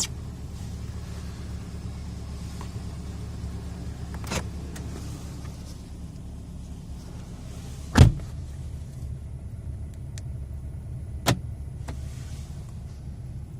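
Datsun car's central door locking clunking several times: sharp short clicks about four seconds in and near the end, with the loudest clunk about eight seconds in, over a steady low hum.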